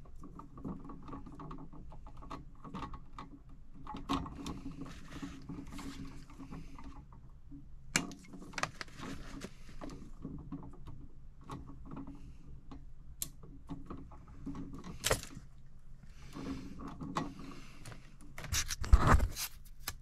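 Small clicks, scrapes and rustles of hands working stripped electrical wire ends over a steady low hum, with louder rubbing and knocks near the end as the camera is handled.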